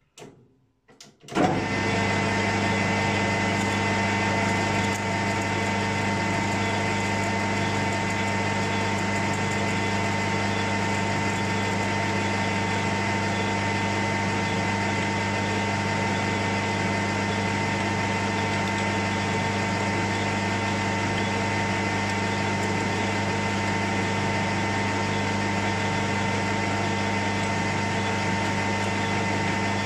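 Small metal-turning lathe switched on about a second in, then running with a steady hum and whine while a drill in the tailstock chuck bores into a small brass part.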